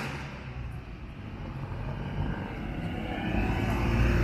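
Street traffic: a motor vehicle's engine fades away, leaving a low rumble, then another vehicle draws nearer and grows steadily louder toward the end.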